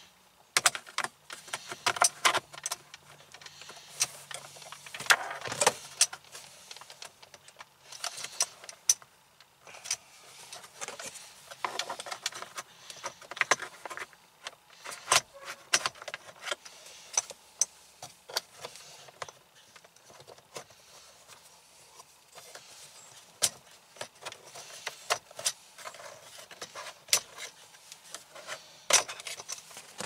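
Plastic center-console trim of a 2009 Pontiac G8 being pried loose with a plastic pry tool: many irregular sharp clicks, snaps and rattles as the trim clips and panel work free.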